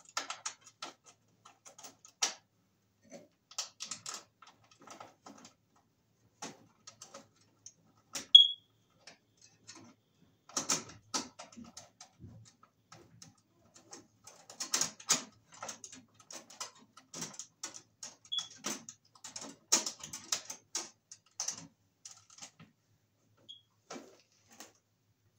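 Yellow NM (Romex) cable being worked into a breaker panel through a cable connector by hand: scattered clicks, taps and rustles of the cable sheath against the sheet-metal box. A few very brief high chirps, the loudest about 8 seconds in.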